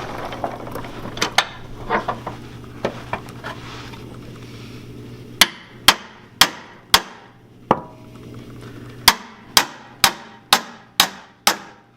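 Hammer blows ringing on steel: a few light taps, then two runs of sharp strikes, five and then six, about half a second apart, knocking on a rusted-on rear subframe mount nut to break it loose.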